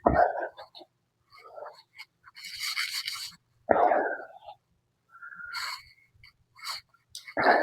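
Scattered kitchen handling sounds as salt is measured out for the pickle brine: short knocks and rustles, with a brief hissing rattle about two and a half seconds in.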